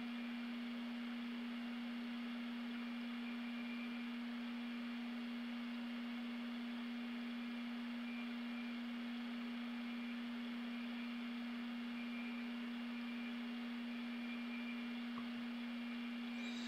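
A steady hum holding one unchanging low tone, over a faint hiss.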